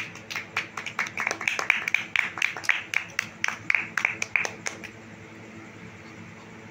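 Hand clapping: quick, uneven claps, about five a second, that stop a little before the end.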